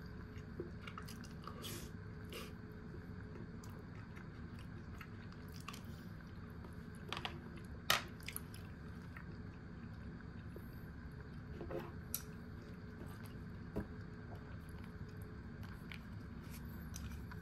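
Close-up eating sounds: a mouthful of curry rice being chewed, with scattered short clicks and taps, the sharpest about eight seconds in, over a steady low hum. Near the end a plastic salad container is handled.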